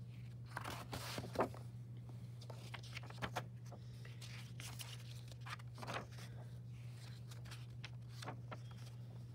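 Pages of a paperback picture book being turned and handled: a string of short paper rustles and flicks, thickest in the first couple of seconds and again around three and six seconds in, over a steady low hum.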